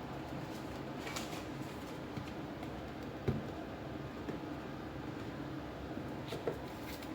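Handling of a phone's retail box and packaging: a few light taps and rustles, the sharpest a knock about three seconds in, over a steady low hum.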